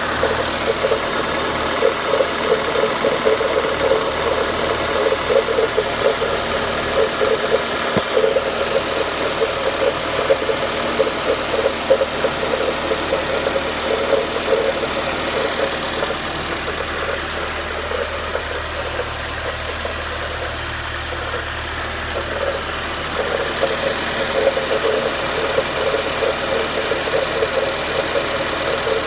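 Renault Duster engine idling on a cold warm-up with a fast, even knocking that eases for a few seconds past the middle and then returns. This is the cold-start knock the owner is recording on a nearly new engine.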